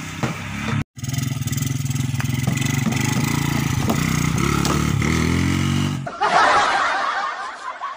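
Small motorcycle engine running as the bike rides by, its pitch rising briefly near the end. About six seconds in, the engine sound gives way abruptly to a loud burst of noise that fades away.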